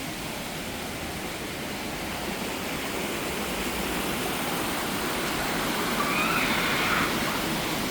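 Waterfall: water rushing and splashing in a steady noise that grows slightly louder.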